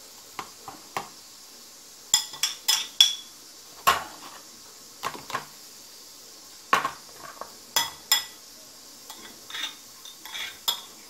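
A utensil scraping and clinking against a kitchen strainer in irregular strokes, roughly one or two a second, some with a short ring, as grated radish mixed with honey is pressed so the syrup drains through.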